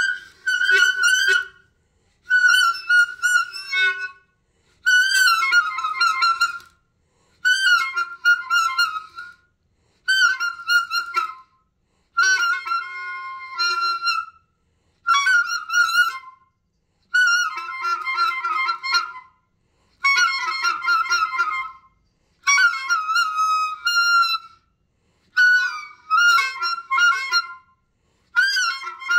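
Clarinet playing high, wavering notes in about a dozen short phrases of around two seconds each, separated by brief pauses.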